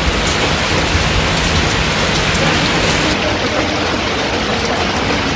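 Heavy rain falling steadily, a dense even patter on wet ground and puddles.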